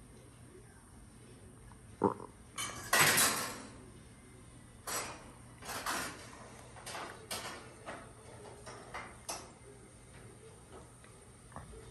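A series of sharp clinks and clatters of hard objects: a short one about two seconds in, a louder rattling clatter just after, then several lighter knocks spread over the next few seconds.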